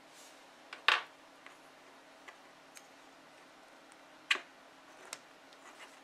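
Small sharp plastic clicks and taps from Anderson Powerpole connector housings being handled and slid together, with two louder snaps, one about a second in and one just past four seconds.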